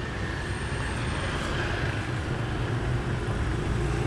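Steady outdoor street noise with a continuous low rumble, as of motorbike traffic on the road.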